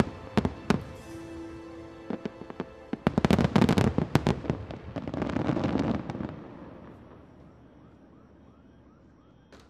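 Finale of a fireworks display: aerial shells bursting. A few sharp bangs over sustained music at the start, then a rapid barrage of bangs about three seconds in, and a dense run of small crackling pops that dies away after about six seconds.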